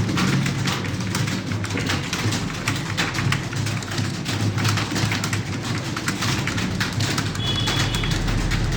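Rapid typing on a computer keyboard: a dense, continuous clatter of keystrokes.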